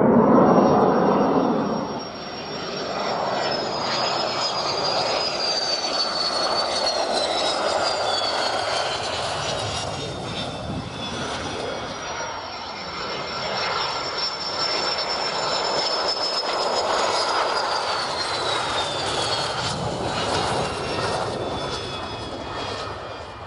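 Military jet engines at takeoff: a steady roar with a high whine that slowly falls in pitch as each jet passes. The jets are a Eurofighter Typhoon climbing out, then A-4 Skyhawks lifting off the runway. The sound is loudest in the first two seconds and drops abruptly there, then builds again.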